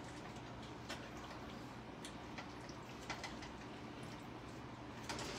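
A spoon stirring chicken and broccoli in a thick cream sauce in a skillet, with faint, irregular clicks of the spoon against the pan over a steady low hum.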